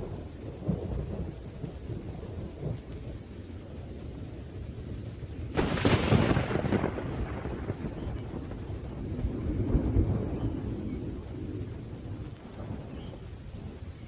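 Thunderstorm: a low, continuous rumble of thunder over steady rain, with a sudden sharp thunderclap a little before halfway that fades over a second or two, and another rolling swell of thunder a few seconds later.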